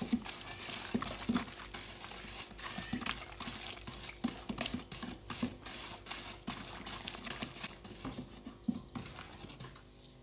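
Wooden stick stirring dish-soap base and water in a plastic bucket, the liquid swishing and the stick knocking irregularly against the bucket's sides, one or two knocks a second. The knocking stops near the end.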